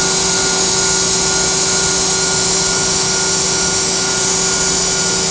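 Moore No. 2 jig grinder running, its high-speed grinding spindle giving a steady hiss with a few held tones as the wheel makes a light spark-out pass in a bore.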